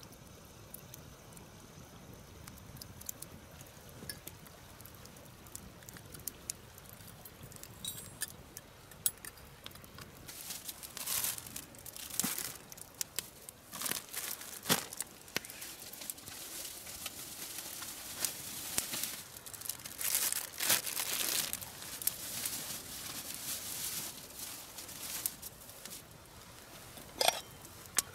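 Rustling and crinkling, as of something being handled, in repeated bursts through the middle, with scattered light clicks and knocks.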